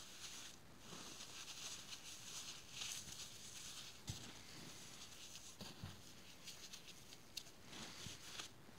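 Dry, unsoaked floral foam crumbs rubbed and crushed between gloved hands: a faint, continuous fine crackling and rustling that swells and fades, with two soft low thumps about four and six seconds in.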